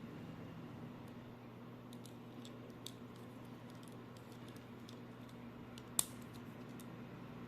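Scattered light clicks and taps, with one sharper, louder click about six seconds in, over a steady low hum.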